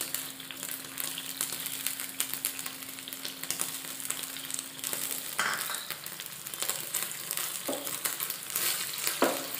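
Onion-and-capsicum sauce sizzling with a steady crackle in a nonstick frying pan. In the second half a wooden spatula stirs through it in a few short scraping strokes.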